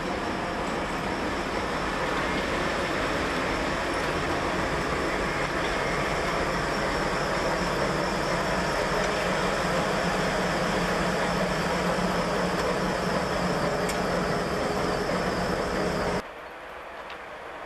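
Diesel locomotive engine running steadily under a constant hum, with a few steady tones in it. It cuts off abruptly near the end, leaving a quieter, duller rumble.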